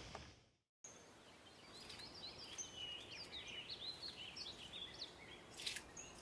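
Faint outdoor ambience with small birds chirping and twittering in quick, varied notes, after a moment of silence near the start; a soft click near the end.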